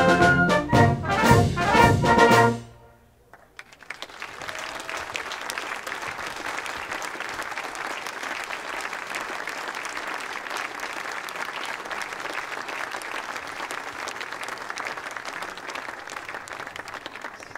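A brass-heavy wind band plays the closing chords of a march, ending sharply about two and a half seconds in. After a second's pause the audience breaks into steady applause.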